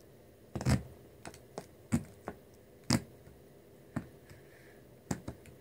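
Glitter slime being poked and pressed into a small plastic cup, giving about nine scattered sharp sticky clicks and pops, the loudest a little under a second in.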